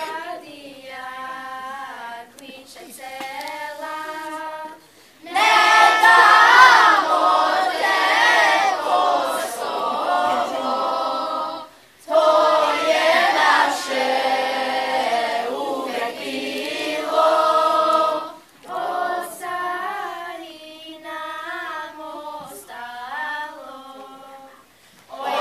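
Children's choir singing, softer at first, swelling louder about five seconds in, and dropping back softer after about eighteen seconds.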